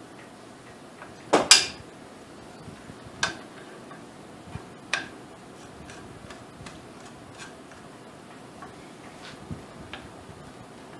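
Sharp clicks and clacks of a Magpul flip-up backup sight being fitted and tightened onto the handguard's rail. The loudest, a quick double clack, comes about a second and a half in, with two smaller clicks about 3 and 5 seconds in and faint ticks between.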